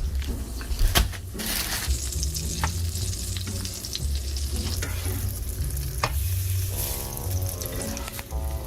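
Bread sizzling as it fries in a pan, with a few sharp knocks and scrapes of a utensil; a steady pitched hum joins in near the end.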